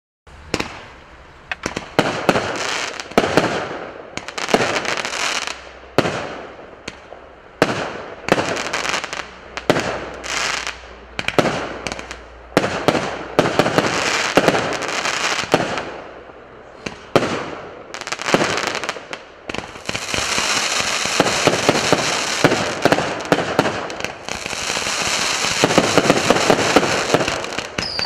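A 96-shot, 0.8-inch firework cake ('New Year Adventure') firing: a rapid series of launch thumps and aerial bursts with crackling tails. The shots come thick and fast in the last third, merging into a dense crackle.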